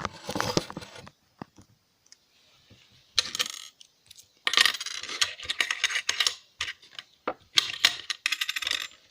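Small metal parts salvaged from a laptop hard drive clinking and clattering as they are handled and set down on a table, in several short spells of rapid clicks and taps with quiet gaps between.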